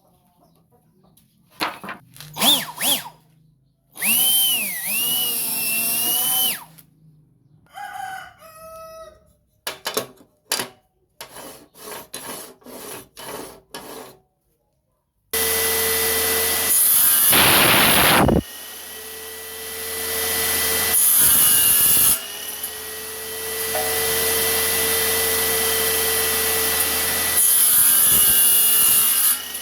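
A homemade table saw, built from a 7-inch 24-tooth circular saw, switches on suddenly about halfway in and runs steadily. It gets louder three times as the blade cuts through wood. Before that there are scattered clicks and knocks and a rooster crowing.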